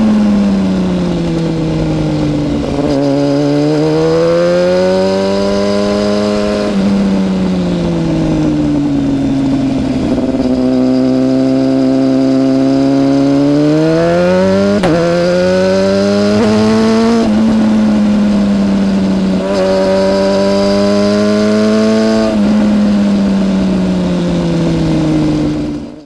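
2013 BMW S1000RR's inline-four engine through a decat aftermarket exhaust, heard from the rider's seat. It revs up hard and rolls off again and again as the bike accelerates out of bends and slows into them, with a quick gear change about fifteen seconds in. The sound fades out at the very end.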